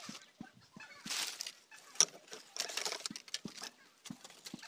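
Dry sticks and brush rustling twice as they are pushed into a small wood fire, with one sharp snap between the rustles and scattered soft low knocks throughout.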